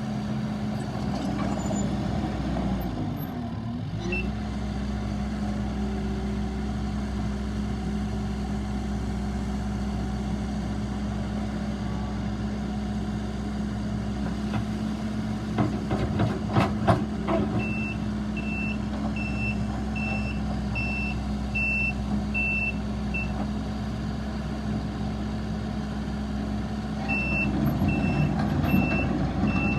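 Takeuchi TL8 compact track loader's diesel engine running steadily, dipping in pitch briefly a few seconds in as it takes load. A few loud knocks come midway. Its reversing alarm beeps about one and a half times a second, in two spells in the second half.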